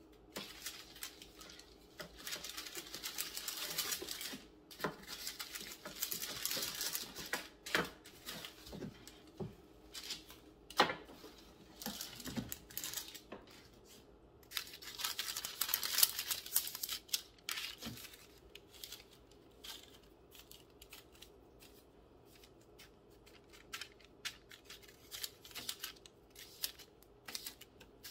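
Parchment paper crinkling and rustling in bursts as hands work bread dough on it, with a few light knocks in between.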